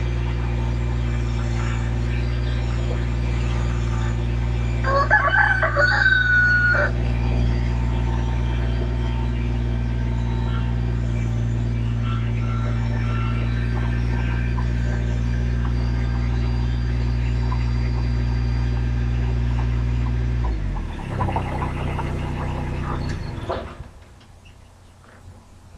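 A rooster crows once about five seconds in, over the steady hum of an engine running. The engine changes note about twenty seconds in and shuts off shortly before the end.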